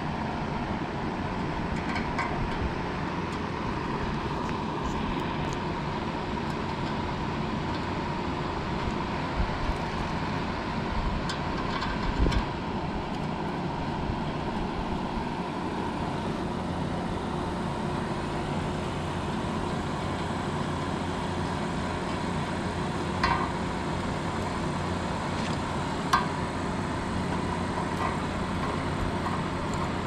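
Steady whirring hum of a Makita cordless job-site fan running, with a few light clicks and knocks as condenser fan blade parts are handled.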